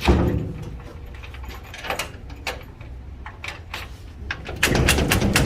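A door being shut with a knock, then its latch and lock worked: scattered metal clicks, and a quick run of clicks near the end.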